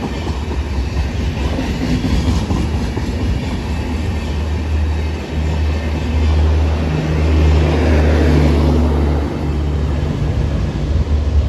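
Passenger train passing close at speed: a loud, steady rushing noise over a low hum, swelling about halfway through.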